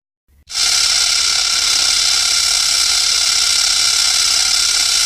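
King Ghidorah's 1964 gravity beam sound effect: a loud, steady, harsh electric buzz with many high tones layered together. It starts about half a second in after a brief silence.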